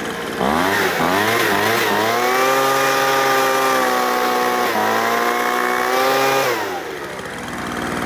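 Craftsman 25cc two-stroke leaf blower engine revved from idle to full throttle about half a second in, wavering briefly before holding steady at high revs for several seconds, then dropping back to idle near the end. Warmed up with the choke off, it takes full throttle without dying.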